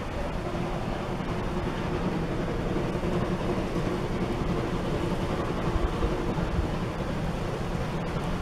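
Climax geared steam locomotive working in the distance, its exhaust mixed into the steady rush of a river and wind buffeting the microphone.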